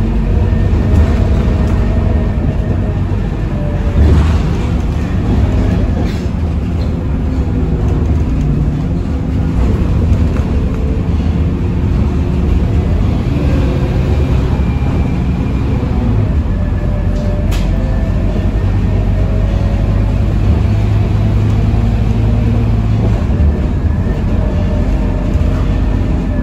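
Scania K230UB city bus heard from inside the cabin while under way: the rear-mounted nine-litre five-cylinder diesel running with a steady low rumble under road and body noise, and whining tones that slide up and down in pitch as the bus changes speed. A single sharp tick about two-thirds of the way through.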